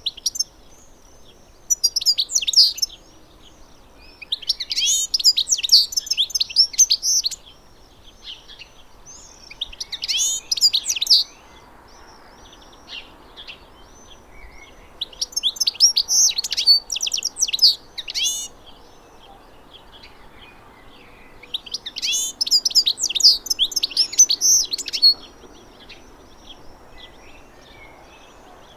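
A finch singing: about five bursts of rapid, high twittering song, each one to three seconds long, with softer single chirps in the pauses between them.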